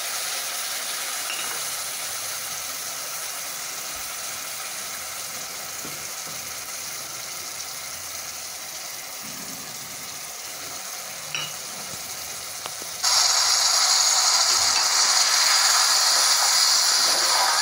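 Spices mixed with water sizzling in hot oil in a steel kadhai just after being poured in. The sizzle eases slowly, then jumps suddenly louder about two-thirds of the way through, while a steel spoon stirs the masala.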